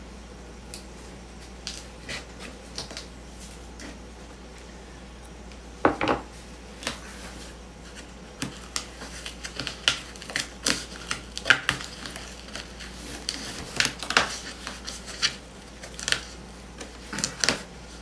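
Scissors cutting and prying at the packing tape and flaps of a cardboard shipping box: scattered sharp clicks, scrapes and tape crackles, sparse at first and coming thick and fast from about six seconds in.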